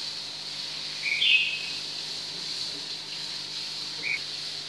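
A small bird chirping twice: a short two-step high chirp about a second in and a brief single chirp near the end, over a steady faint hiss.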